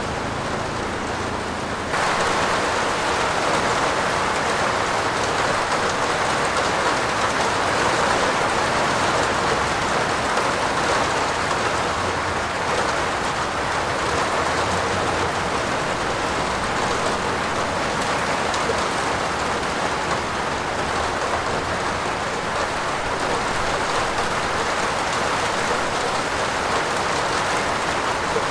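Heavy rain falling on a roof, a steady dense patter that gets louder and fuller about two seconds in and keeps on evenly.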